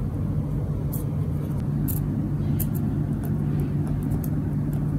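Steady low hum and rumble in the room, with faint scratchy ticks of a ballpoint pen writing a name on a paper card.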